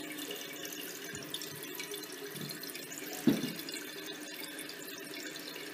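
Water running steadily into the toilet tank through the Wolverine Brass ballcock as the tank refills, a steady faint hiss. One short louder sound about three seconds in.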